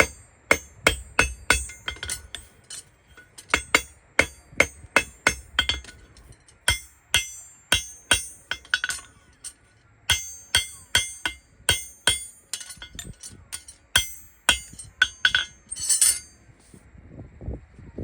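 Farrier's hammer striking metal in quick runs of sharp, ringing blows, about two to three a second, with short pauses between runs.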